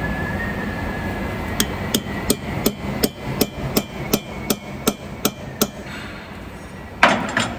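Hammer tapping a Torx bit into a drilled-out broken hub-cap bolt in a truck wheel hub, to grip the bolt and wind it out. About a dozen sharp taps come at roughly three a second, then a louder knock near the end.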